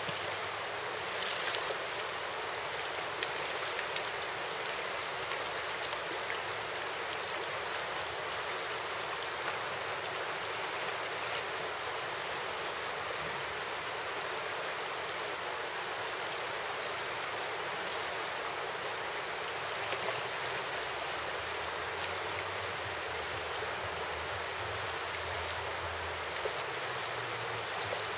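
Steady rush of river water flowing over a shallow, stony bed, with a few faint clicks.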